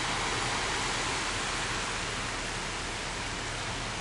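Steady, even rushing hiss of water on a flooded street, with no distinct knocks or splashes and easing slightly after the first second.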